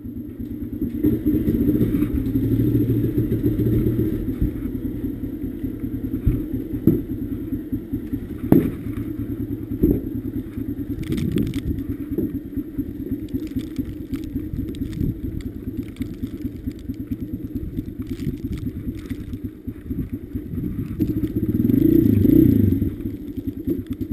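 Honda CRF150F dirt bike's single-cylinder four-stroke engine running at idle, with a few sharp knocks and clatters over it. Near the end the engine rises briefly in loudness and pitch.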